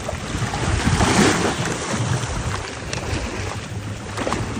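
Steady rush of wind buffeting a phone's microphone over water sloshing against the hull of a capsized boat alongside.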